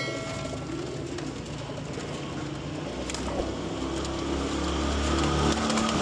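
Domestic pigeons cooing in a loft. From about halfway through, a low rumble builds beneath them.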